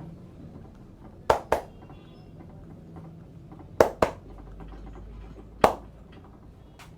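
Hands slapping sharply during a head massage: five loud slaps, mostly in quick pairs about a quarter second apart, over a faint steady hum.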